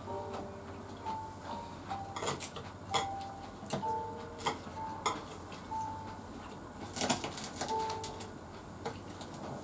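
Crunching and chewing of crispy deep-fried food, with chopsticks clicking against a plate and bowl. Short, high, steady notes sound faintly underneath.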